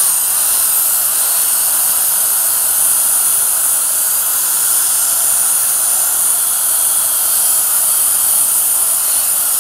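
Air die grinder with a Scotch-Brite disc running at full speed against the metal of a pump's seal bore, cleaning it up: a steady, loud hiss and high whine that cuts off suddenly at the end.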